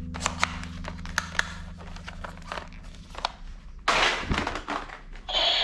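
Hard plastic toy guns clacking and knocking as they are handled and set down on a heap of plastic toys, with a louder rattling clatter about four seconds in.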